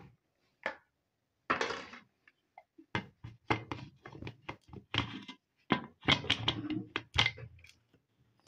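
Aluminium pressure cooker lid being set on and fitted into place: a scrape, then a quick run of metal knocks and clanks.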